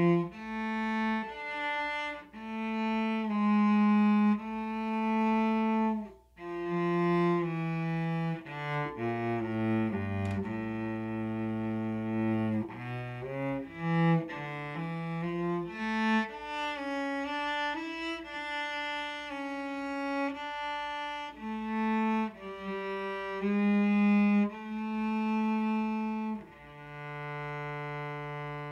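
Solo cello bowing a slow melody in long sustained notes, with a short break about six seconds in, ending on a long held low note.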